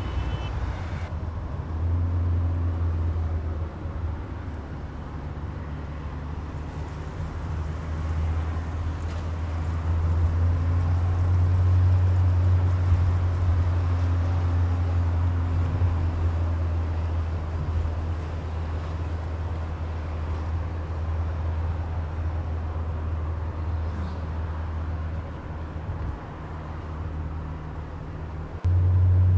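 Car driving in city traffic heard from inside the cabin: a steady low rumble of engine and tyres on the road, louder once the car is moving at speed.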